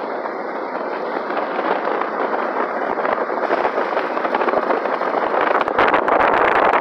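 Road and wind noise from a moving vehicle: a steady rush that slowly grows louder, turning rougher with low rumbling and crackle on the microphone in the last second.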